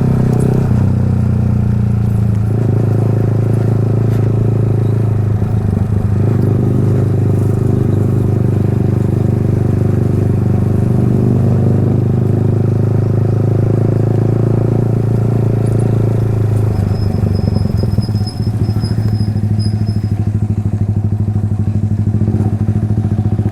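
Yamaha R15's 155 cc single-cylinder engine running through an Akrapovic aftermarket exhaust, held at a steady cruising speed with a loud, even exhaust note.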